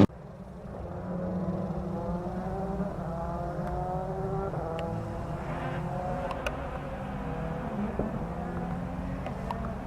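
A rally car's engine heard from a distance, accelerating: its pitch rises and drops back several times as it shifts up through the gears.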